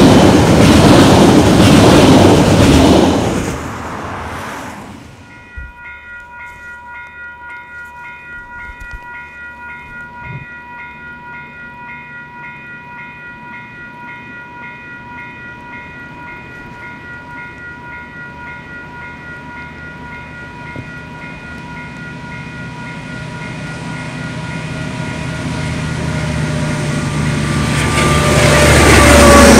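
A freight train's wagons rumble past close by for the first few seconds and fade out. Then a level crossing bell rings in a steady pulse, about one and a half strokes a second, while two KiwiRail DL-class diesel-electric locomotives approach. Their rumble grows louder and peaks as they pass near the end, with a pitch that drops as they go by.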